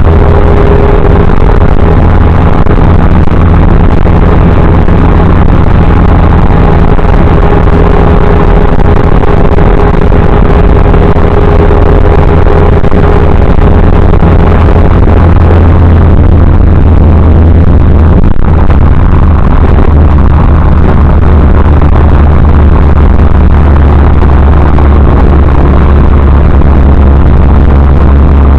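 Triumph TR3A's four-cylinder engine running while the car is driven, picked up by a dash cam whose microphone is overloaded, so the sound is clipped and distorted. A steady deep drone, with a thin steady whine above it that fades out about halfway through.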